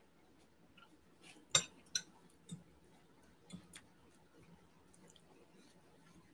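A few light clicks of an eating utensil against a plate, about five over two seconds, the first the loudest, amid otherwise quiet room tone.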